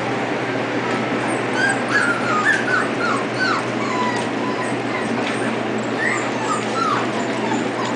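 A group of five-week-old poodle puppies whimpering and yipping in many short, high squeals, thickest in the first half and again near the end, over a steady background hiss.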